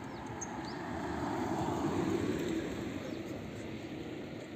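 A small hatchback car driving past on the road, its engine and tyre noise swelling to a peak about two seconds in and then fading away. A few short bird chirps near the start.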